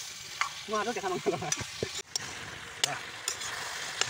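Duck meat sizzling in a metal pot as a spoon stirs it, with sharp clicks and scrapes of the spoon against the pot.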